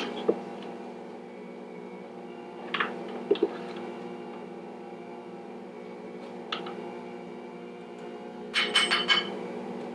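Stand mixer motor running with a steady hum, while a metal measuring cup clinks now and then as flour is scooped and added to the stainless mixing bowl. Near the end comes a quick run of taps as the cup is knocked against the bowl to empty it.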